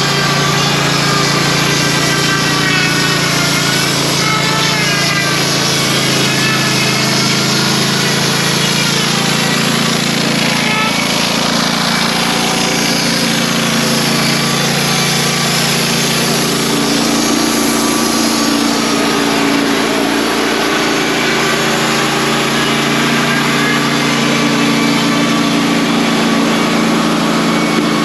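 Wood-Mizer LT35 portable band sawmill running steadily, its engine under load as the band blade saws through a white pine log.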